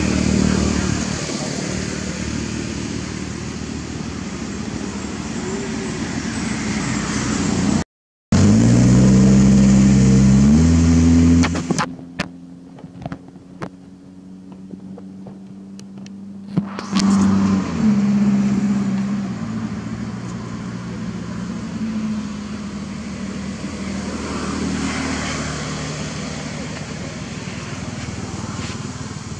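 A motor vehicle engine revving up in steps, loudest from about eight seconds in. It is heard again more briefly a little later, over a steady outdoor background noise.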